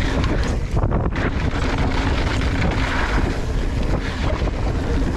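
Wind rushing over an action camera's microphone during a fast mountain-bike ride, with a heavy low rumble and a few sharp knocks.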